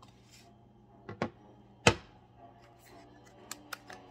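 Handling noise from a smartphone and its cardboard box on a wooden table: two light knocks about a second in, then a sharp knock just before two seconds in as the phone is set down. A few small clicks follow near the end as the box insert and a plastic adapter are handled.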